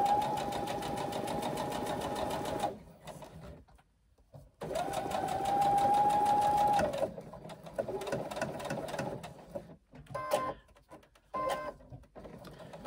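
Brother domestic sewing machine stitching, basting a zipper tape in place: its motor runs with a steady whine and even stitch rhythm for a few seconds, stops briefly, runs again for about two seconds, then gives a few short bursts near the end.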